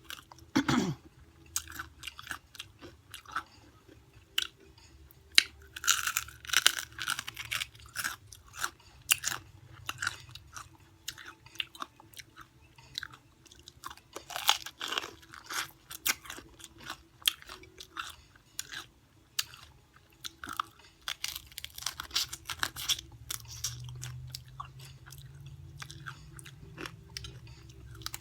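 Close-up crunching and chewing of extra-crunchy, flourless fried chicken: a dense run of sharp crunches as the crispy skin is bitten and chewed, with louder clusters of bites at intervals.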